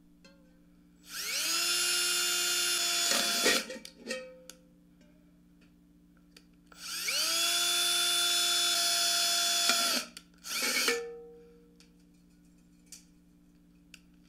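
Cordless drill boring two holes through a metal mason jar lid: two runs, each spinning up to a steady high whine for about two to three seconds, then a short final burst.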